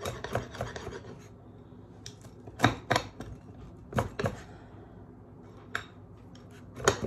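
Pizza-cutter wheel pressed and rolled through a hard pizza crust on a plate, scraping at first, then a string of sharp clicks and knocks as the blade hits the plate; the crust is hard to cut.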